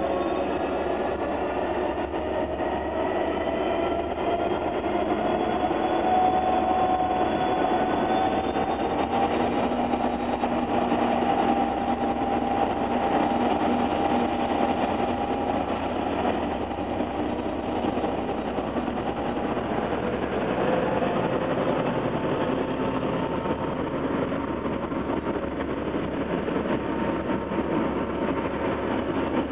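Irish Rail 201 Class diesel locomotive, its two-stroke V12 EMD engine running under load with a whine that rises over the first several seconds and then holds, as it approaches and passes; its train of intercity carriages then rolls past on the rails.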